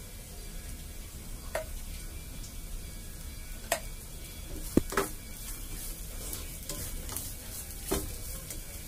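Grated carrot and green chillies sizzling lightly in a pan while a wooden spatula stirs them, knocking against the pan a handful of times, loudest about five seconds in.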